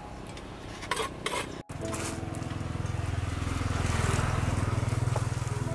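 A small motor-scooter engine idling, with a steady, rapid pulsing note. It starts abruptly about a second and a half in and grows louder. Before it come a few sharp crackles of plastic bags being handled.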